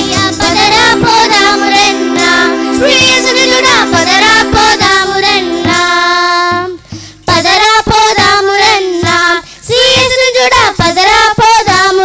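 Children singing a song with musical accompaniment. The low backing thins out about six seconds in, and after a short break the singing carries on.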